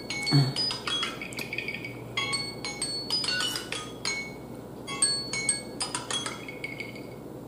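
A metal spoon clinking against a glass bowl: many light taps in irregular clusters, each ringing briefly at the same bright pitch, until they stop near the end.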